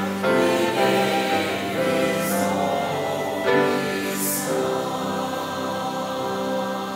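Church choir singing sustained chords, with two brief sung 's' sounds, slowly getting quieter toward the end.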